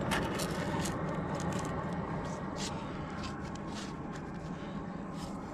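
Steady low wind rumble on a helmet-mounted camera, with many short scrapes and clicks from the climber's taped hands and gear against the sandstone crack.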